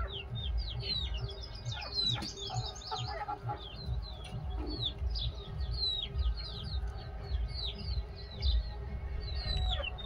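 A brood of young desi chicks peeping continuously, many short falling cheeps overlapping several times a second, with a few lower clucks about two to three seconds in.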